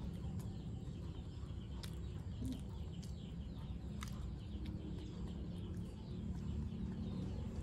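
Chickens clucking faintly over a steady low rumble, with three short sharp clicks about two, three and four seconds in.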